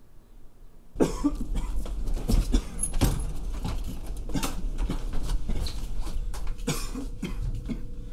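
A man coughing hard in a sudden, sustained fit of rapid, ragged coughs that starts about a second in.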